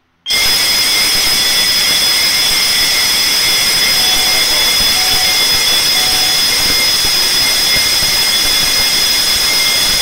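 Electric fire alarm bell of an automatic fire alarm system ringing continuously and very loudly, a fast metallic rattle with steady high ringing tones. It starts suddenly a third of a second in, when the receiver's fire test confirms a fire after its accumulation delay.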